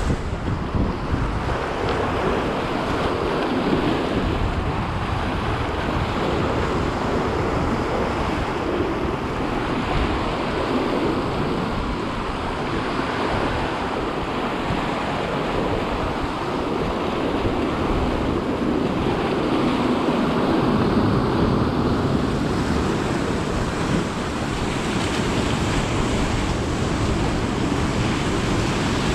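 Sea surf washing against a rocky shore, a continuous rush that rises and falls, with a crosswind buffeting the microphone.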